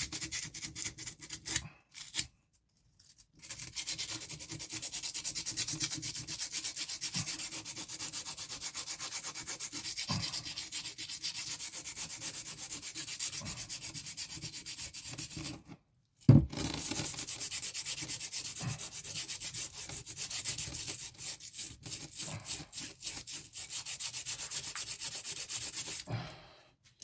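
Abrasive rubbed by finger, in quick back-and-forth strokes, inside the eye of a painted steel sledgehammer head to clean it out for the new handle. The rubbing stops briefly twice, about two seconds in and at about sixteen seconds.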